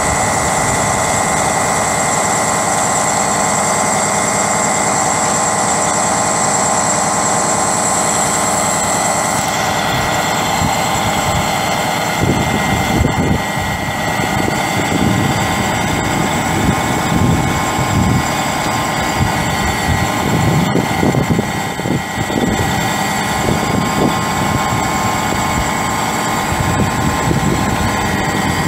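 Western Star 4900SA truck's diesel engine running steadily with a steady high whine, as the truck's hydraulics drive the Hiab 1055E articulated crane extending its telescopic boom. From about twelve seconds in, uneven low rumbles come in over it.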